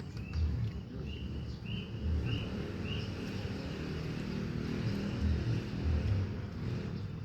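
A bird calls a run of about five short, arched whistled notes, roughly two a second, then stops. Under it is a steady low rumble.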